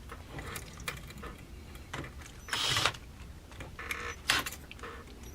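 Scattered clicks and knocks of tools being handled at a workbench, with a short rasping burst about two and a half seconds in and a smaller one near four seconds.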